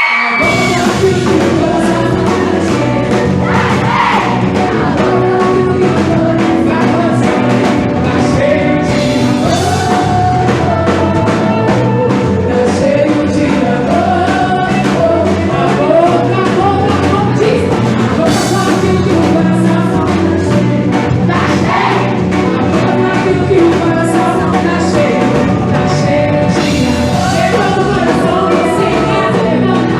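A sung gospel-style song with a band and drum kit keeping a steady beat, starting abruptly right at the beginning.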